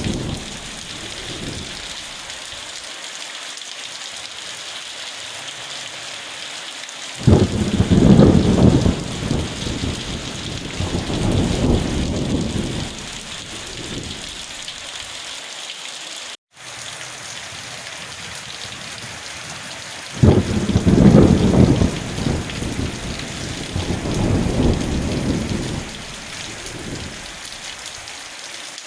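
Steady heavy rain falling, with two rolls of thunder that break in suddenly, about a quarter and two thirds of the way through, each rumbling for several seconds before fading back under the rain. The sound cuts out for a split second about halfway through.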